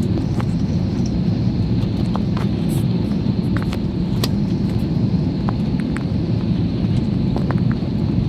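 Steady low roar of a jet airliner's engines and rushing air heard from inside the cabin on final approach, with a faint steady high whine and small scattered clicks.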